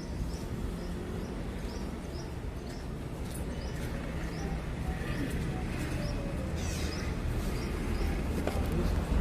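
Short high chirps repeating about twice a second, over a steady low rumble of traffic.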